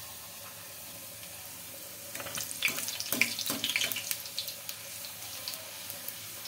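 Puri deep-frying in hot oil: a steady sizzle, with a burst of crackling and spattering about two seconds in that lasts a couple of seconds as the puri puffs up.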